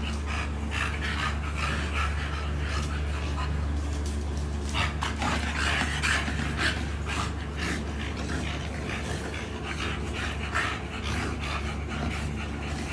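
American Bully dogs panting hard, with scuffling as two of them play-wrestle. A steady low hum runs underneath.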